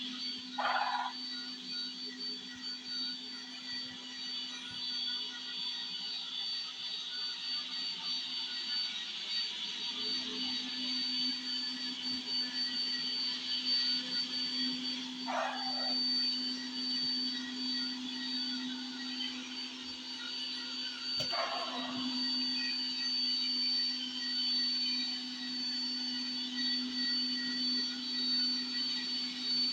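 Bissell SpinWave robot vacuum running: a steady high-pitched motor whine over a low hum and a rushing suction noise, with three brief louder noises about a second in, around fifteen seconds in and around twenty-one seconds in.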